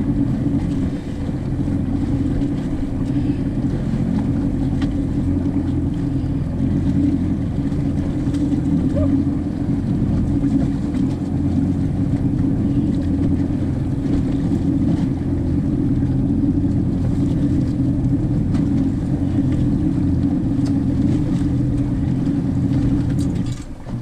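Small boat's engine running steadily, a low, even drone, with wind and water noise over it.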